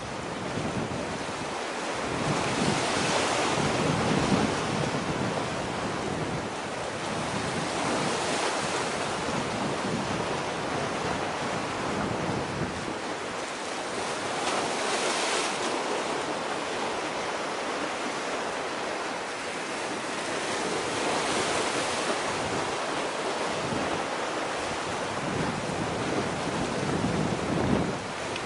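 Wind rushing over the microphone mixed with sea surf, a steady noise that swells and eases every few seconds.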